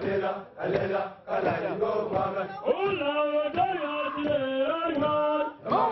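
A large group of men chanting a song together, holding sung notes in phrases broken by short pauses.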